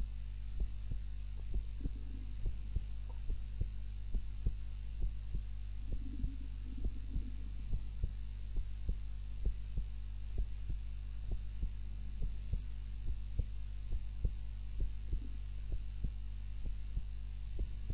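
A sleeping woman's heartbeat, slow and regular at about one beat a second, over a steady low hum.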